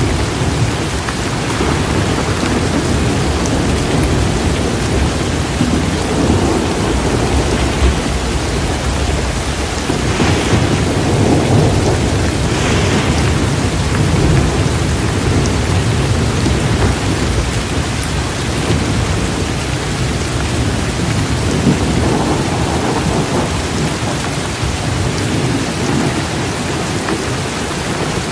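Steady rain with a low rumble of thunder underneath it, swelling about ten seconds in.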